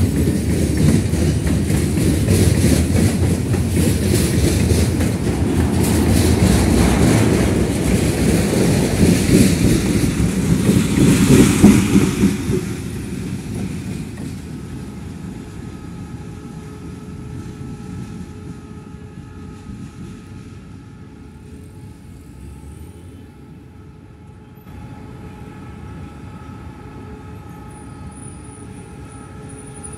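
Loaded freight wagons rolling past close by, their wheels clattering loudly on the rails. About twelve seconds in this cuts off. It gives way to a much quieter, steady drone with a few held tones from an approaching diesel locomotive.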